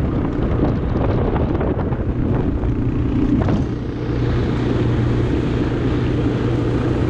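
Four-wheeler (ATV) engine running steadily while riding at speed, with wind rushing over the microphone and tyre noise on the road; the engine's hum gets a little stronger about four seconds in.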